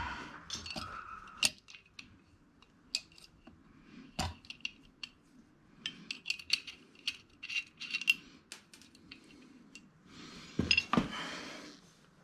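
Scattered light metallic clicks and clinks of hand tools working on the sprocket bolts of a Suzuki DR-Z400SM rear wheel hub, with a louder metal clatter near the end.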